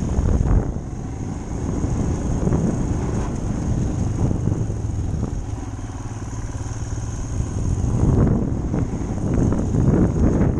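Motorcycle engine running while the bike is ridden along a dirt trail, heard from the rider's helmet; it gets louder again a little before the end.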